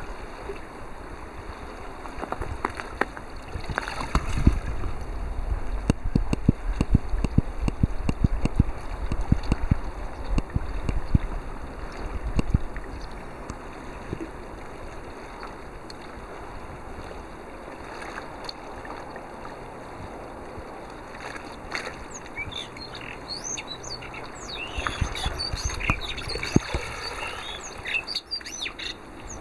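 Seawater sloshing and splashing, with a dense run of clicks and knocks in the first half. High, quick chirps come in near the end.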